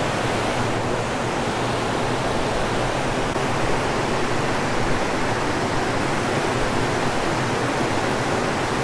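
Water pouring over a dam spillway and churning in the pool below: a steady, unbroken rush.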